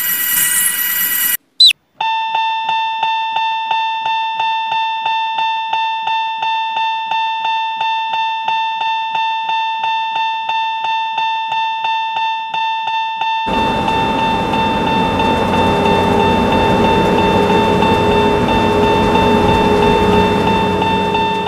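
Electronic warning bell of a Japanese railroad crossing ringing at a steady beat, about two and a half dings a second, starting about two seconds in. About two thirds of the way through, a louder steady rushing noise joins it and runs on under the bell.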